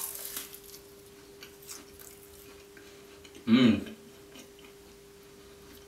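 A bite into a flaky-pastry spinach and ricotta roll, a short crackly crunch, followed by faint chewing. About three and a half seconds in, the eater makes a brief voiced hum with falling pitch.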